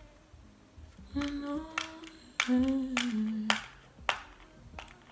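A woman humming a slow tune in a few long held notes, with several sharp clicks and taps mixed in, the loudest about two and a half and three and a half seconds in.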